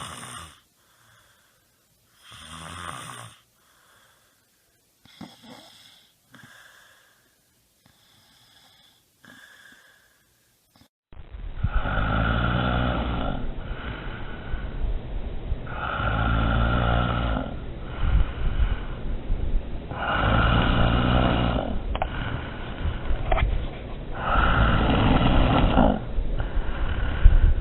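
Snoring: faint, scattered snores at first, then from about a third of the way in, loud snores in a regular rhythm, one roughly every four seconds.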